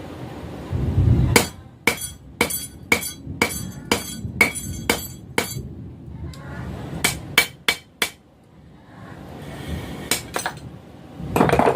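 Blacksmith's hammer striking a knife blank on an anvil while forging a skinner blade: a run of about ten ringing blows, roughly two a second, then after a pause a quicker cluster of four and two more. A low rumble comes just before the first blow, and there is a louder clatter near the end.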